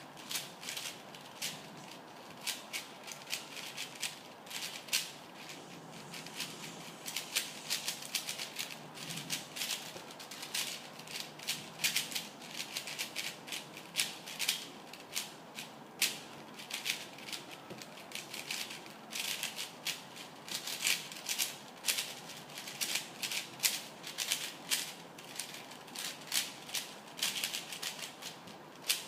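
A 4x4x4 speedcube being turned rapidly during a solve: a dense, irregular clicking and clacking of plastic layers, in quick flurries broken by short pauses.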